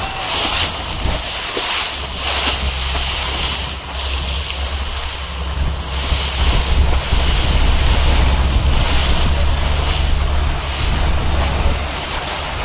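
Wind buffeting the microphone over the rush of sea water and the low, steady running drone of a parasailing tow boat's engine, which grows louder about halfway through.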